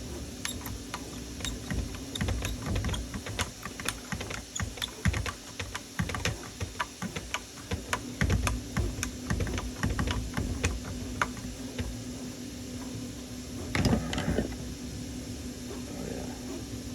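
Self-tapping screws being tightened by hand into 3D-printed plastic parts: a long run of small, irregular clicks and ticks. About 14 seconds in there is a louder knock with rustling as the parts are handled.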